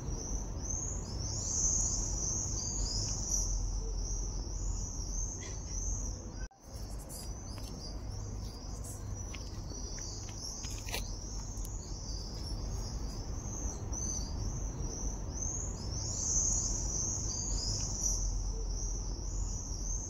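Steady high chirring of insects, swelling and fading in waves, over a low rumble; the sound cuts out for a moment about six seconds in.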